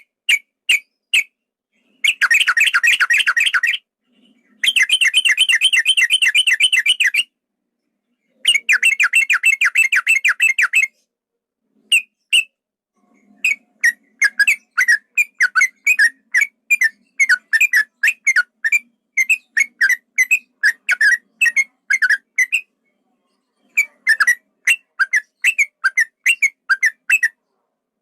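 Yellow-vented bulbul (trucukan) singing. It opens with short separate notes, then three long rapid rolling trills of about two to three seconds each, then a long run of quick, repeated chirping notes with a brief break near the end.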